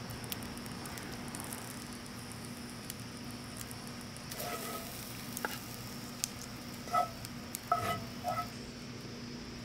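Wooden spatula scraping pulled mushroom out of a skillet: several short, squeaky scrapes and clicks in the second half, over a steady quiet hiss.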